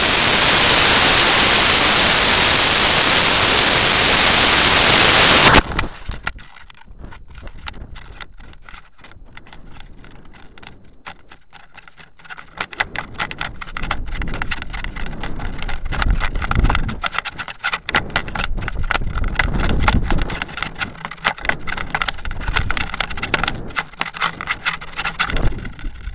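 Rocket motor burning, heard from a camera riding on the rocket: a loud, steady hiss that cuts off suddenly about five and a half seconds in at motor burnout. After it, wind rushes and buffets over the onboard microphone with crackling, growing louder again about halfway through.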